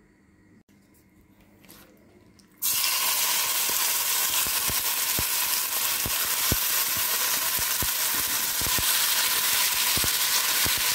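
Marinated chicken pieces hitting hot oil in a frying pan: a loud sizzle starts suddenly about three seconds in and keeps going steadily, with scattered crackling pops of spitting oil.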